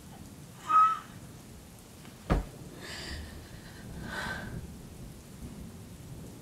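Steady rain with a single sharp thunder crack about two seconds in. A short, loud sound with a thin tone comes under a second in, and softer short sounds follow at about three and four seconds.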